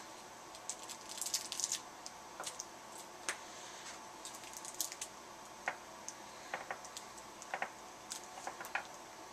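Small plastic toy figure and its packaging being handled: irregular clicks, taps and crinkles, busiest about a second in.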